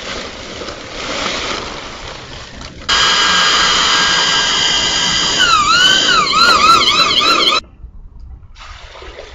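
Electric drill with a paddle mixer starts up about three seconds in, churning concrete mix in a plastic bucket. Its whine rises and falls several times as the speed changes, then it stops abruptly near the end.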